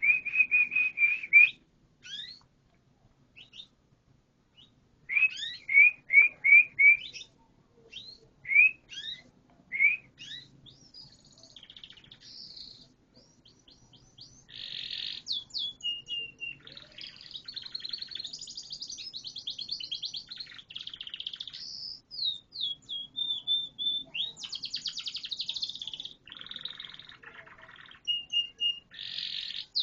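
Canary singing. First comes a scattering of short whistled chirps with gaps between them, then from about halfway a long, almost unbroken song of rapid trills and rolls.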